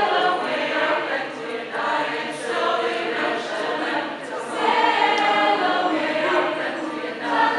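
A chorus singing a cappella, several voices holding overlapping pitches together; the sound eases off briefly a little past the middle and swells again.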